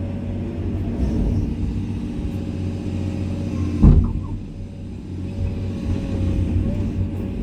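Komatsu excavator's diesel engine running steadily with a deep rumble, with one sharp loud clunk about four seconds in; the engine note eases for a second or so afterwards, then picks up again.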